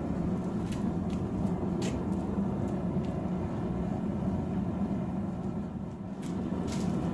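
Propane forge burners running, a steady low-pitched rushing noise, with a few light metallic clicks.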